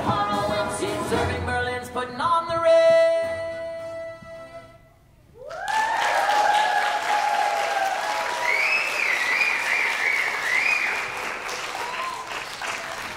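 A group of children singing over a musical backing track, ending on a held final chord; after a short pause, audience applause with cheers starts about five and a half seconds in and carries on.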